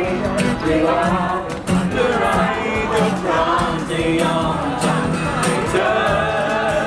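Acoustic guitar strummed in a steady rhythm while a group of young people sing along.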